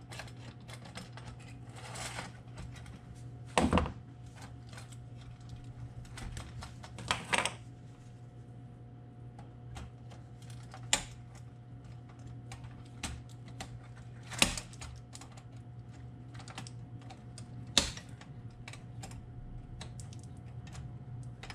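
Irregular small metallic clicks, taps and scrapes of hand tools working the bent retaining clips off the underside of a Toastmaster Model 1B9 toaster, with a handful of sharper clinks scattered through.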